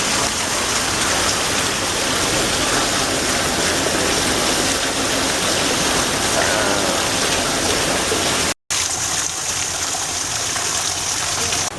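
Steady rush of running water, such as a waterfall or water feature. It drops out for an instant about eight and a half seconds in and comes back thinner and hissier.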